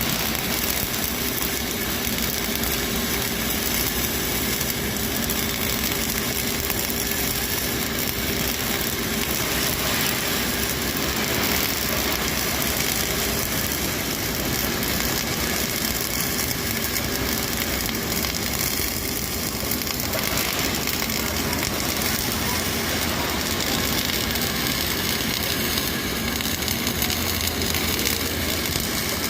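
Flux-cored arc welding a fillet weld with 1.2 mm wire under 80% argon / 20% CO2 shielding gas: the arc runs steadily without a break, an even, continuous noise.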